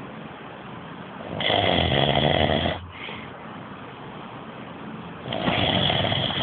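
A man snoring very loudly in his sleep: two long snores, each about a second and a half, the second one near the end, with quieter breathing between them.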